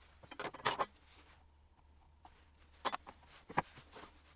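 A steel square and plywood boards being handled on a wooden workbench: a cluster of metallic clatter and scraping about half a second in, then two sharp knocks about three seconds in.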